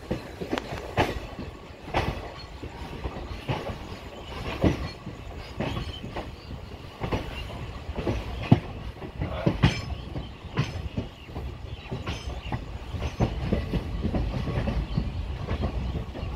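Passenger coach wheels clacking irregularly over rail joints and pointwork as the train moves slowly through the station yard. A low rolling rumble builds and grows louder in the last few seconds.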